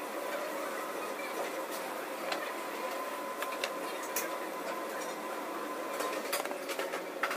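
Steady hiss of commercial-kitchen ventilation with a faint steady whine that stops about six seconds in, and a few light clicks and taps.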